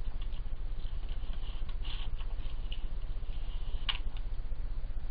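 European badgers feeding at a food bowl: faint crunching, scratching and small clicks, with one sharper click about four seconds in, over a steady low hum.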